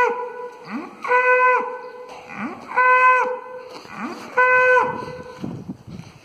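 Cattle calling repeatedly: four steady, held moos of about half a second each, roughly one and a half seconds apart, each led in by a short rising sound. The calls stop about a second before the end.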